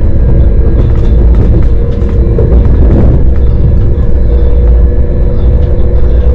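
Commuter train running: a loud, steady low rumble with a steady hum and a few faint clicks.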